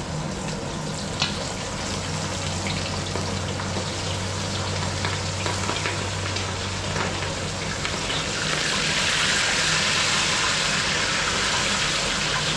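Pieces of striped bass frying in a wide pan of hot oil, a steady sizzle that grows louder about eight and a half seconds in. A few light clicks of the metal tongs sound over it.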